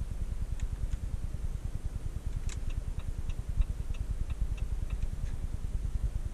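Low rumble inside the cabin of a Jeep Compass 1.5 e-Hybrid, with a short run of light, evenly spaced ticks, about three a second, for roughly three seconds midway.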